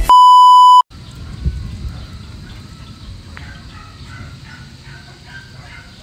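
A single loud, steady electronic beep lasting under a second, which cuts off abruptly. Then rural outdoor ambience follows: a continuous high-pitched drone, low rumble, a couple of light clicks and faint short chirps repeating in the last few seconds.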